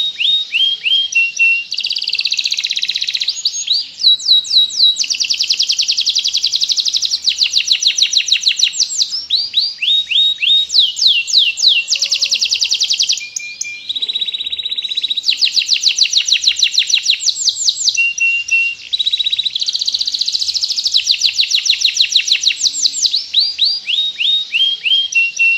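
Domestic canary singing a long, loud, continuous song: phrase after phrase of rapid trills, with short breaks between phrases.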